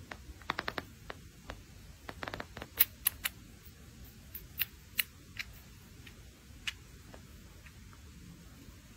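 Faint, sharp clicks and ticks over a quiet steady hiss: a quick run of four about half a second in, a cluster around two seconds in, then single clicks spaced out until about seven seconds in.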